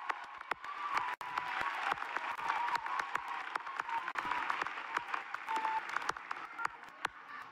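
Large crowd applauding, the clapping dying away near the end.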